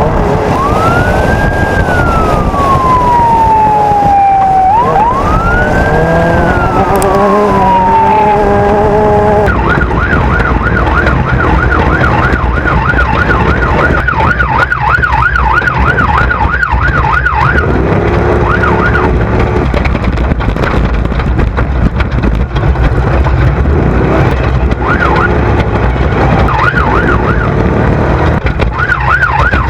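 Electronic siren sounding two slow wails, each rising and then falling, then switching to a fast yelp that stops and starts several times. A steady engine rumble runs underneath.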